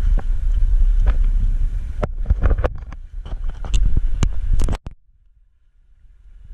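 Steady low rumble aboard an outrigger fishing boat, with a run of sharp knocks and clatters of gear on the wooden deck. The sound drops away almost completely about five seconds in.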